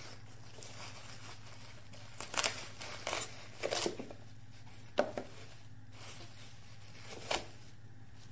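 Knife cutting a green bell pepper on a wooden cutting board: about five short, crisp cuts through the pepper's flesh, the sharpest about five seconds in.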